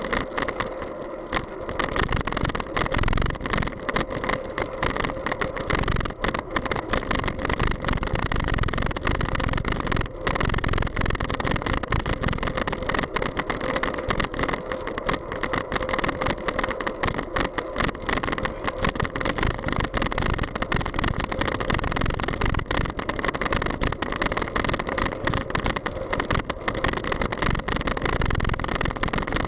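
Wind rushing and buffeting over the microphone of a bicycle-mounted camera while riding, mixed with road noise.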